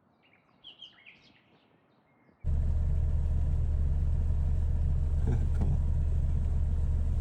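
A few brief high bird chirps, then a loud, steady low rumble with a deep hum that cuts in abruptly about two and a half seconds in.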